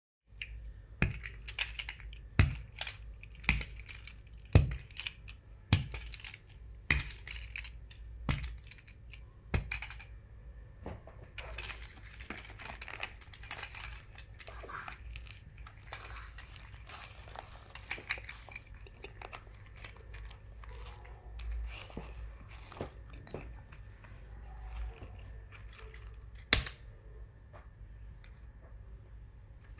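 Small plastic toy cars clicking and clacking against each other as they are dropped and set down one after another: a quick run of sharp clicks at first, a stretch of soft rustling in the middle, then a few scattered clicks with one loud click near the end.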